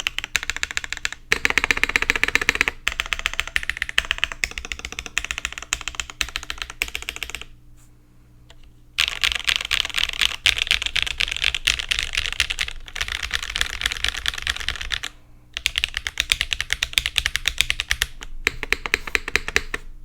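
Typing on a Meletrix Zoom75 mechanical keyboard with Gateron Smoothie linear switches, GMK Dune keycaps, an aluminium plate and no foam: a dense stream of key clacks. It stops for about a second and a half some seven seconds in, and twice briefly later on.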